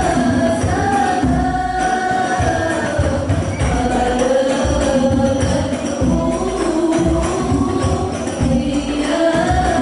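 Sholawat devotional singing with a hadrah percussion ensemble: voices carry a flowing melody over steady frame-drum strokes and jingling tambourine.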